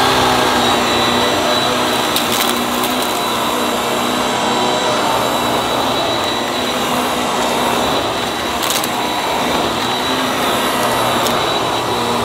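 Upright vacuum cleaner running steadily with a high motor whine, its floor head pushed back and forth over carpet, sucking up spilled dust and dirt, with a couple of sharp clicks as grit is drawn in.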